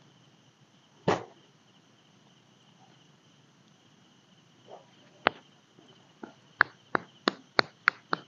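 Steady high-pitched drone of night insects, with one sharp knock about a second in and another about five seconds in, then a run of sharp clicks or taps about three a second from about six seconds in.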